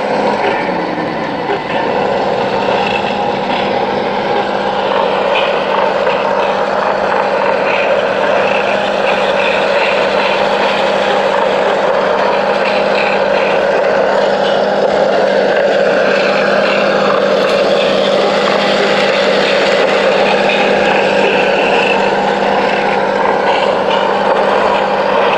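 Electric motor and gears of a remote-control toy vehicle running steadily, with a constant whine.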